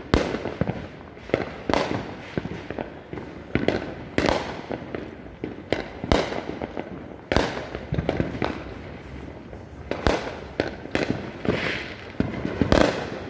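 Aerial fireworks going off: a string of sharp bangs, a big one every second or two, with smaller pops and crackles between them.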